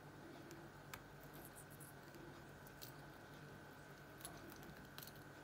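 Lovebird nibbling a lettuce leaf: faint, scattered crisp clicks as its beak tears at the leaf, over a faint steady high hum.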